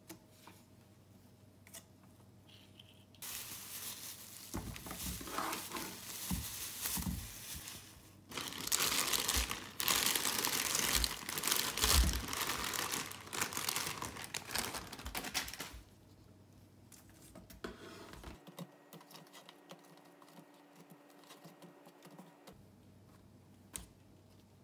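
Plastic mesh produce bag with a paper label crinkling and rustling as apples are pulled out of it, loud for several seconds in the middle. Near the end it goes quiet, with a few light taps as fruit is set down in a wicker basket.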